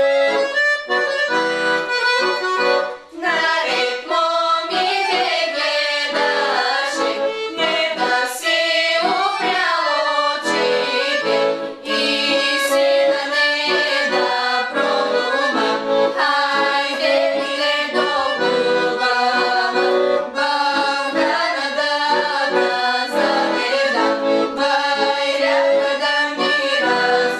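Background music: an accordion playing a lively traditional folk-style tune.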